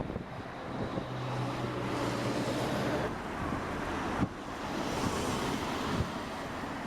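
Strong gusty wind buffeting the microphone in a rising and falling rush. A low engine hum from passing traffic shows briefly about a second in.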